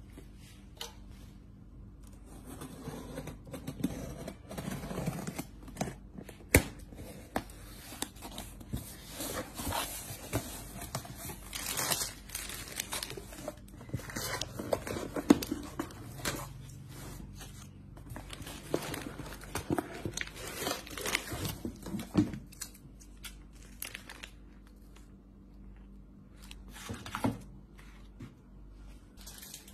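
A cardboard shipping box being unpacked by hand: irregular tearing, rustling and crinkling of cardboard and plastic packaging, with a few sharp knocks. It goes quieter near the end as the sealed packs are laid on the table.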